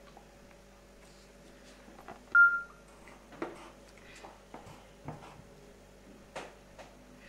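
A single short high electronic beep about two seconds in, the loudest sound, followed by a few light taps and scratches of a pencil marking a paper worksheet, over a steady low hum.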